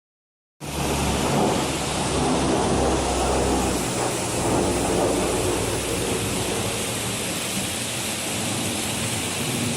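Waterfall's rushing water, a loud steady roar with a deep low rumble, cutting in abruptly about half a second in.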